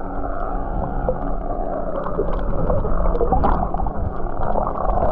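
Underwater sound through a submerged action camera's housing: a muffled rushing of water with many scattered crackling clicks and a low steady hum.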